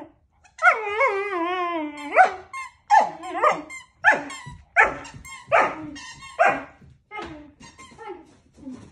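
Puppy whining over a squeaky toy: one long, wavering whine that rises and falls, then a string of short, yelping whines, a little more than one a second.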